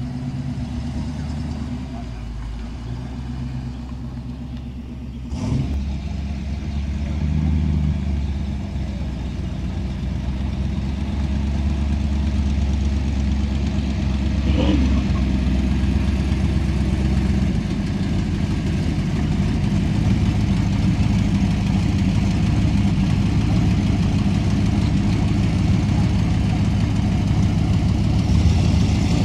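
Classic car engines idling and creeping past at low speed, a steady low rumble that grows gradually louder as the cars pull up close. There is a single sharp knock about five seconds in.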